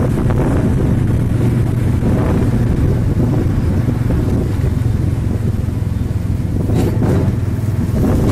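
Steady low rumble of a vehicle moving at speed, heard with the phone held out beside its side, with two brief knocks close together near the end.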